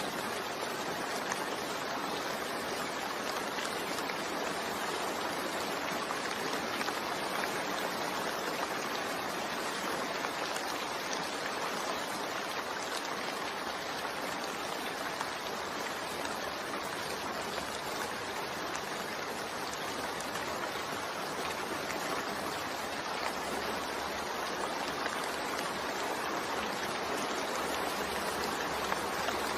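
Steady rain mixed with white noise: an even, unbroken hiss with faint scattered drop ticks.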